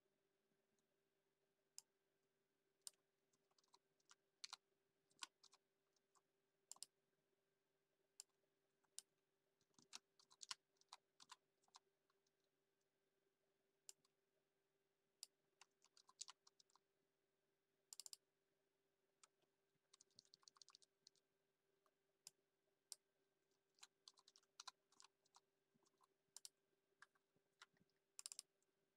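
Computer keyboard being typed on in short bursts of keystrokes separated by pauses, with scattered single clicks. A faint steady hum runs underneath.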